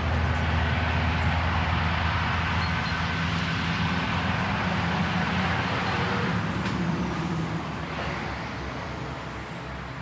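Car driving, with a steady engine hum and road noise. The sound grows quieter over the last few seconds.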